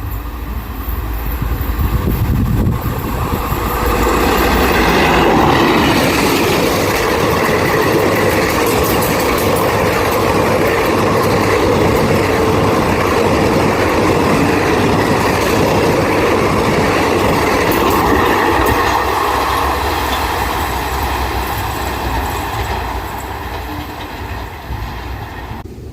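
Indian Railways electric-hauled express train passing at speed, its coaches' wheels running loudly on the rails. The sound builds over the first few seconds, holds for about fifteen seconds, then fades away near the end.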